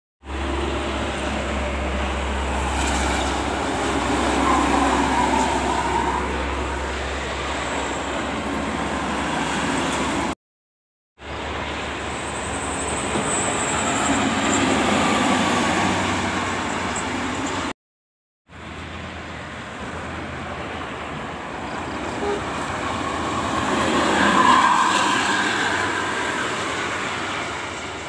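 Large coach buses going by on a highway: a steady traffic rush that swells as each bus passes and eases off again, three passes in all. The sound drops out completely twice, for under a second each time.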